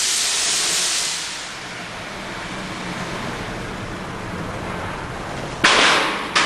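Hissing from a hole pierced in the exhaust of a 1998 Mercedes-Benz E320 while driving, over engine and road noise. The hole relieves a blockage from a disintegrated, melted catalytic converter. A loud hiss fades over the first second or so, then returns sharply near the end.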